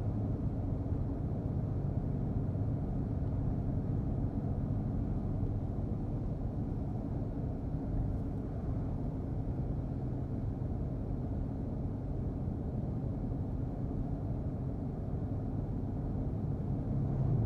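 Car driving on the road, with a steady low engine hum and road rumble heard from inside the cabin.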